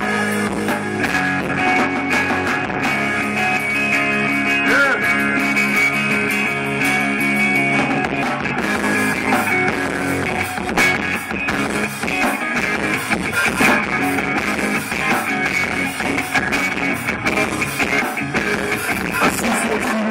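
Live rock band playing an instrumental passage with no vocals: electric guitars and bass over a drum kit.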